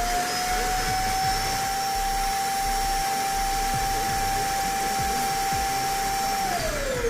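Roomba robot vacuum running, its suction fan giving a steady whine over a loud whoosh. The pitch climbs slightly at first, holds, then drops near the end as the motor slows.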